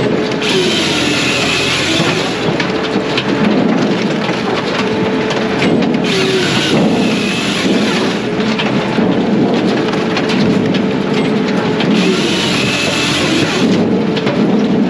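Brute Force USA 18-24HD diesel firewood processor running steadily, its engine dropping in pitch and recovering under load every few seconds. A bright, high-pitched burst comes about every six seconds, three times, each lasting under two seconds: the saw cutting through a hardwood log.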